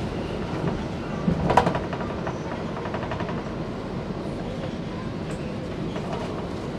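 Stockholm metro C20 subway train running along the track, heard from inside the car: a steady rumble of wheels on rails, with a quick run of sharp clicks and knocks about a second and a half in.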